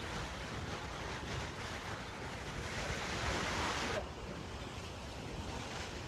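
Steady rushing roar of a waterfall, with wind buffeting the microphone. The hiss thins out suddenly about four seconds in.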